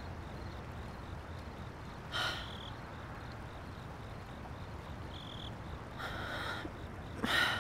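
Crickets chirping faintly and steadily, with three short breathy exhalations: one about two seconds in and two near the end.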